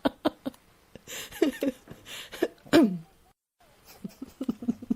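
A woman laughing: rapid short pulses of laughter, gasping breaths, and a squealing laugh that falls in pitch, then after a brief dead-silent break another run of laugh pulses.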